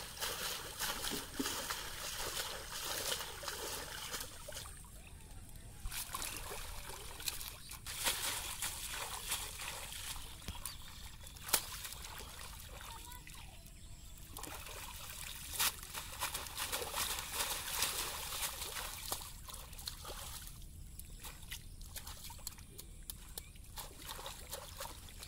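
Water splashing, sloshing and dripping as bundles of retted jute stalks are swished, beaten and stripped of their fibre in a shallow pond, with irregular slaps and a louder slap about eleven seconds in.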